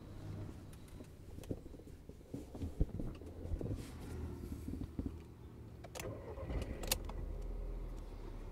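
Low rumble inside a Volkswagen Vento TSI's cabin as it drives slowly, with scattered light clicks and rattles and two sharper clicks about six and seven seconds in. The low rumble grows stronger near the end.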